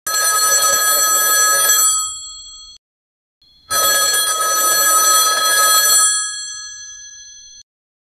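Old-time telephone bell ringing twice, a sound effect generated by Stable Audio AI. Each ring lasts about two seconds and then dies away, and the second begins about a second after the first fades.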